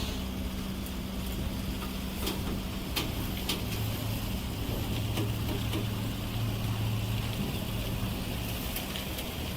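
Heavy truck engine running with a steady low drone, with a few light knocks and clicks over it.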